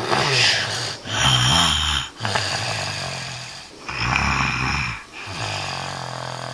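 A child snoring: a run of about five snoring breaths in and out, each lasting about a second.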